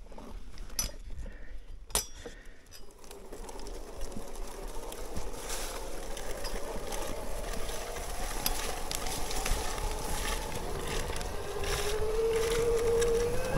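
Bafang BBSHD mid-drive e-bike motor whining under power, its pitch climbing slowly from about three seconds in, over a low rumble from the trail. A couple of sharp knocks from the bike on rough ground come in the first two seconds.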